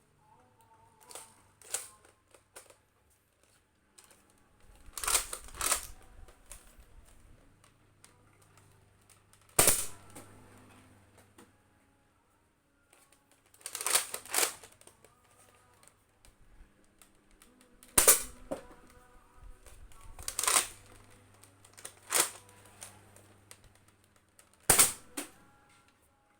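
Sharp plastic clacks from a Nerf Rival Apollo XV-700 blaster being worked, about a dozen over the span, a few seconds apart and some in quick pairs.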